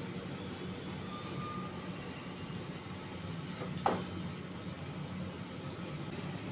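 Steady low hum under the sound of curd-masala gravy being stirred in a non-stick kadai with a silicone spatula. A single sharp knock of the spatula against the pan comes about four seconds in.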